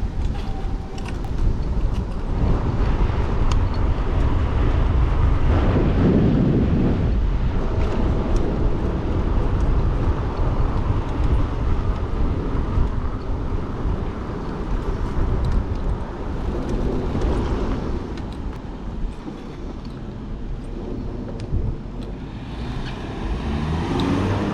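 Riding noise from an e-bike on the road: wind rushing over the microphone with a low tire rumble, swelling louder about six seconds in and easing off later.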